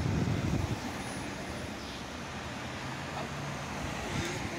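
Road traffic on a city street. A vehicle passing close by fades out in the first second, then a steady low hum of traffic follows.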